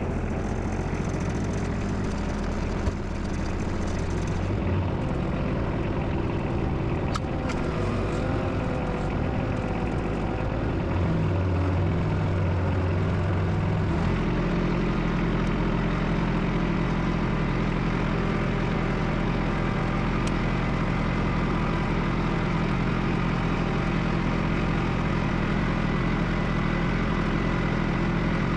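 A vehicle engine running, most likely the one towing the parts car. It shifts speed a few times in the first half and then runs steadily.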